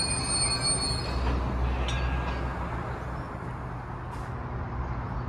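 Passing train: a high, steady steel-wheel squeal fades out about a second in, leaving a steady rumble of wheels rolling on the rails with a few faint clicks.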